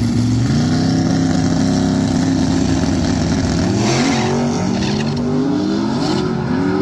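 Two drag-racing cars' engines held at high revs on the starting line, then launching and accelerating hard down the strip, their pitch climbing and dropping again and again through the gears.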